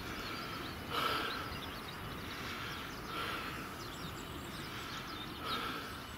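Outdoor background noise, a steady hiss with a few brief swells, with faint bird chirps.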